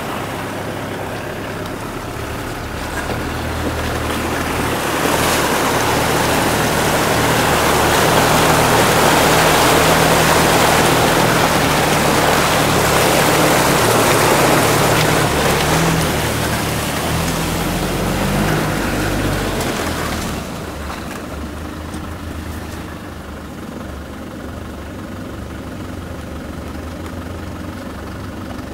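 Land Rover Defender's engine labouring off-road while its wheels churn through muddy water, with a loud rushing splash through the middle. The revs rise briefly, then the splashing stops and the engine runs on steadily.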